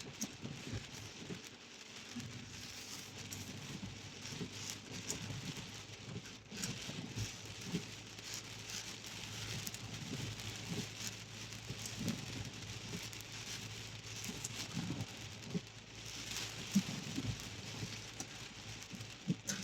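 Heavy rain falling on a car's roof and windscreen, heard from inside the moving car, with scattered light ticks of drops over a steady low hum.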